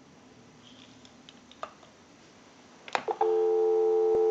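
Telephone line going off-hook: a few faint clicks, a sharp click about three seconds in, then a steady telephone dial tone comes on and holds.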